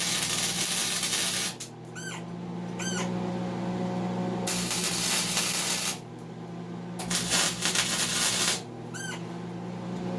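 Gasless flux-core wire welder tacking 3/8-inch steel plate: three spells of arc crackle, each a second or two long, with a steady low hum under them.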